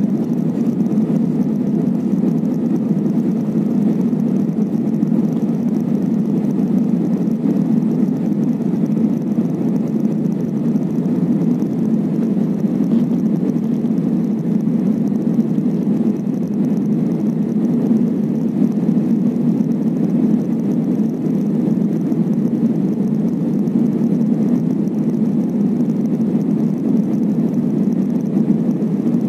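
Steady low rumble of jet engines and rushing air, heard inside the cabin of an Airbus A320-family airliner on descent.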